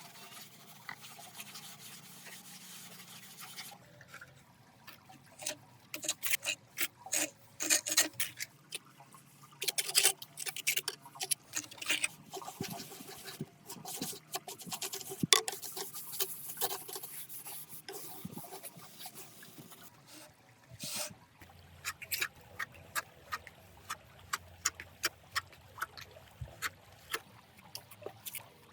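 Irregular rubbing, scraping and quick sharp clicks of small-scale handwork, with a faint trickle of water underneath. The clicks come in busy clusters, thinning out around the middle.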